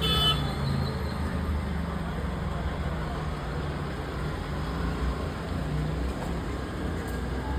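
Steady low rumble with a short high chirp, likely a bird, right at the start.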